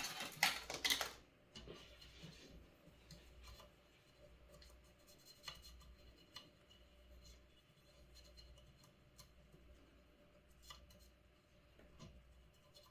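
Scrubbing and rubbing on a small circuit board being cleaned with isopropyl alcohol: a short, louder burst of rubbing in the first second, then faint scattered scratches and small clicks.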